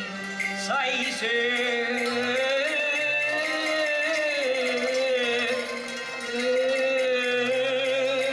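Cantonese opera music: a melody of long, wavering held notes over a lower accompanying line.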